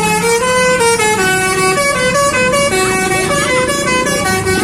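Basuri telolet horn playing a tune: a loud multi-tone horn stepping from one held note to the next a few times a second, with no break.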